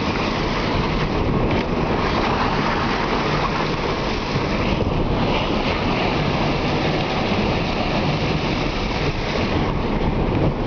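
Car driving through deep water lying on river ice: a steady rushing splash of water against the tyres and body, heard from inside the cabin.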